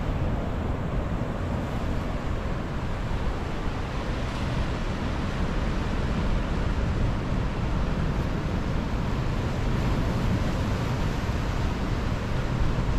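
Ocean surf washing over the rocks of a jetty in a steady rush, with wind buffeting the microphone.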